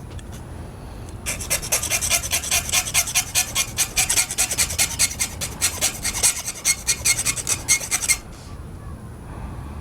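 Small hand file rasping in quick back-and-forth strokes, several a second, against the thin metal of a fishing rod's chipped tip guide, cutting through it to remove the guide. The filing starts about a second in and stops about eight seconds in.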